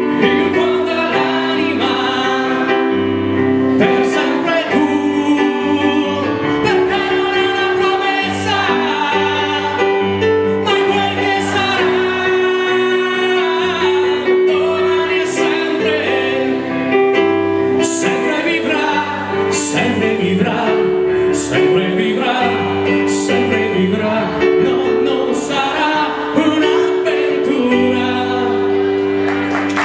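Live singing: a man sings a slow song into a microphone over electric keyboard accompaniment, with long held notes.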